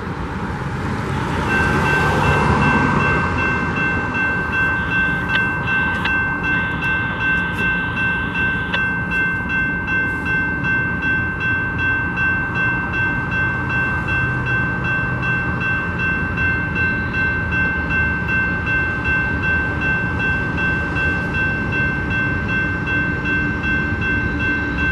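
Railroad grade-crossing warning bell ringing in a fast, even rhythm. It starts about a second and a half in, when the crossing activates and the gates begin to lower for an approaching train. A brief rush of noise comes just before it.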